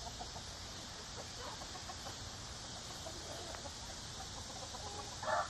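Quiet outdoor background with a steady faint hiss; just before the end a chicken starts clucking loudly.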